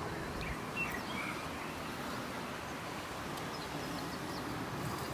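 Outdoor garden ambience, a steady hiss of background noise with a few faint bird chirps: a short run of them about a second in and a few more near the end.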